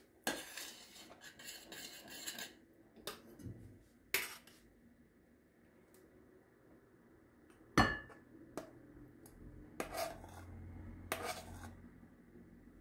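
Dishes and cutlery being handled: scraping at first, a few light clicks, one sharp clink that rings briefly a little past the middle, then more scraping.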